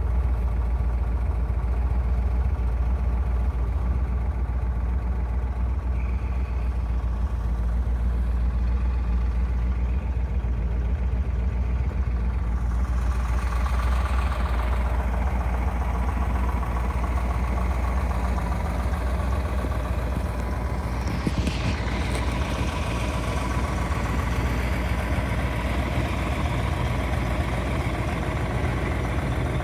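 Plymouth Hemi V8 (426 cubic inches) idling with a steady low rumble. A short, sharper noise cuts in about two-thirds of the way through.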